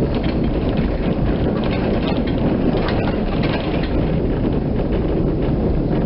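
Kirnitzschtal tram running along its roadside track, heard from on board: a steady low rumble of wheels and motor with a few faint clicks.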